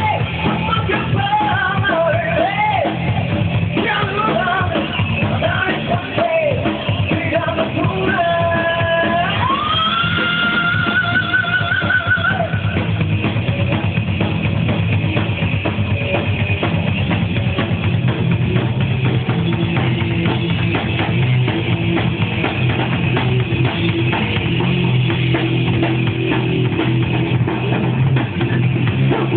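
Live rock band with drum kit and electric guitar playing. A singer's vocal runs over the first dozen seconds, ending on a held note that slides up and holds, and after that the band plays on without vocals. The recording is muffled, with no treble.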